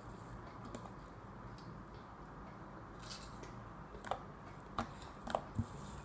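Faint room noise with a handful of short, sharp clicks and taps in the second half.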